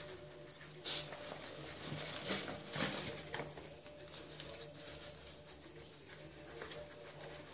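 Dog snuffling and nosing a cardboard egg carton, with a few sharp knocks and rustles from the carton, the loudest about a second in.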